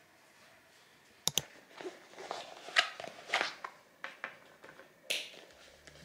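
Plastic building-brick flowers being handled and set down on a wooden shelf: a quick pair of sharp clicks about a second in, then a run of light clicks and rustles.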